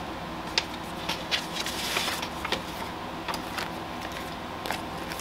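Scattered light clicks and soft rustling of paper and packaging being handled while unboxing, over a faint steady hum.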